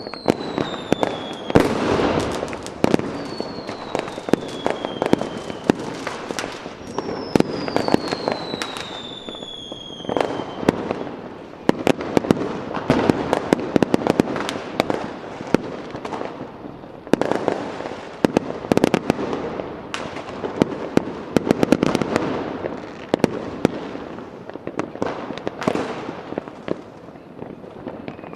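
Fireworks going off: dense crackling and rapid bangs throughout, with three whistling fireworks, each a whistle falling in pitch, in the first ten seconds or so.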